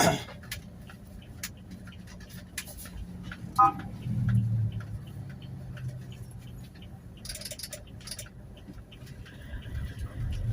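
Toyota Hiace Commuter van driving in city traffic, heard from inside the cab: low engine and road rumble that swells for a few seconds from about four seconds in, with scattered small clicks and rattles throughout.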